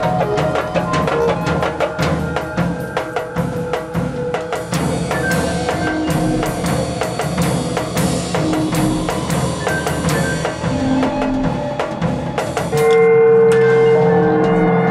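Drum kit played with a fast, dense run of drum and cymbal strikes. Near the end a gong is struck and keeps ringing, louder than the drumming, while strikes continue over it.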